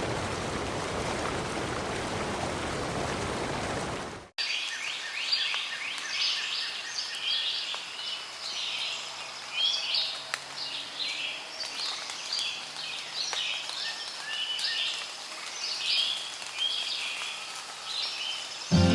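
Steady rain hiss for about four seconds, which cuts off abruptly. Songbirds then sing with many quick chirps and trills.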